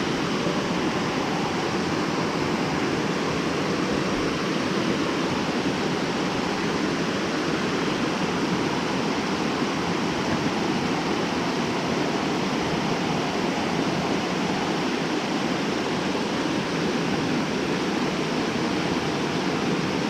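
River water rushing steadily in a constant, even flow.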